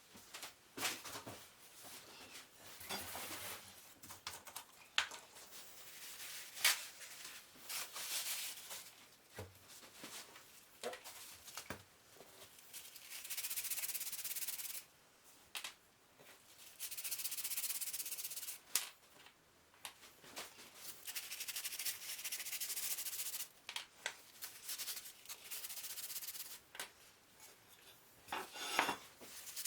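Hand rubbing over a part in stretches of a few seconds each, a dry hiss, broken by pauses and scattered sharp clicks and knocks.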